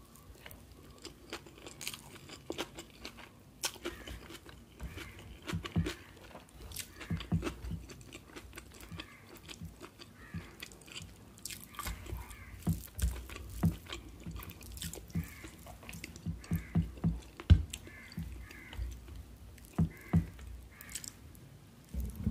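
Close-miked chewing of a mouthful of biryani rice eaten by hand, with wet mouth clicks, smacks and small crunches coming at irregular intervals.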